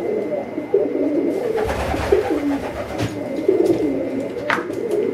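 Pigeon cooing continuously in low, wavering tones, with a few light clicks over it.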